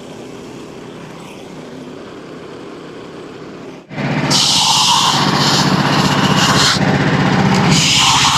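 Portable bandsaw mill's gas engine running steadily at low level. About four seconds in, the sound jumps to the engine at full throttle under load, with the loud high hiss of the band blade cutting through a large red oak log. The hiss swells and eases in stretches.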